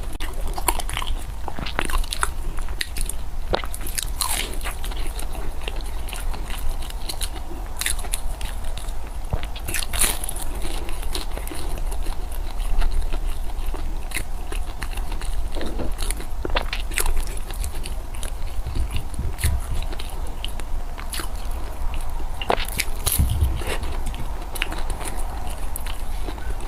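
Close-miked chewing and biting of food, with frequent irregular crunches and crackles over a steady low hum.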